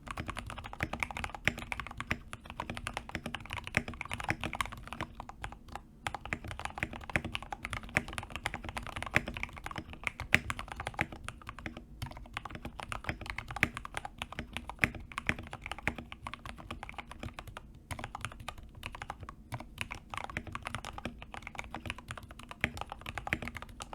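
Continuous typing on a tape-modded CIY Tester 68 (TES68) custom mechanical keyboard with Gateron KS-3 yellow linear switches, a fast, steady stream of muted key clacks.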